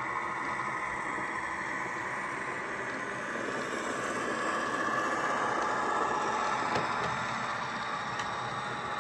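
Hornby OO gauge Sentinel model locomotive running on the layout, its LokSound 4 Micro sound decoder playing a diesel engine sound through the model's small speaker. The sound is steady, with a sharp click about seven seconds in.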